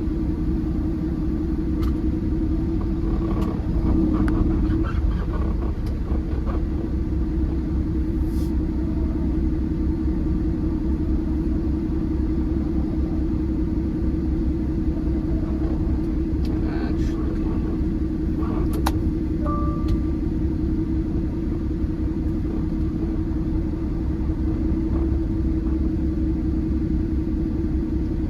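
Peterbilt semi truck's diesel engine running with a steady low drone while the truck moves at low speed, with a few faint clicks and a brief beep about twenty seconds in.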